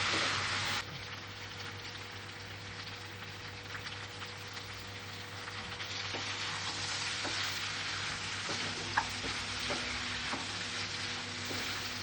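Food frying and sizzling in a pan, with a few sharp clicks of a utensil against the pan. The sizzle drops down about a second in and then carries on steadily.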